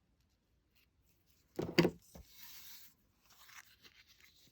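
Scissors closing with a sharp double clack about a second and a half in, most likely snipping off the excess crinkle ribbon, followed by soft crinkly rustling of ribbon and card stock being handled.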